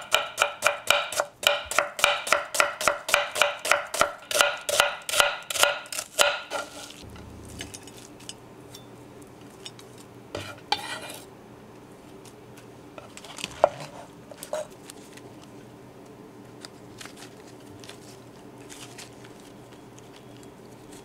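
Chef's knife slicing an onion on a wooden cutting board: quick, even cuts about three or four a second, each knock ringing briefly, stopping about six seconds in. After that, a few scattered clinks and scrapes as the slices are moved into a glass baking dish.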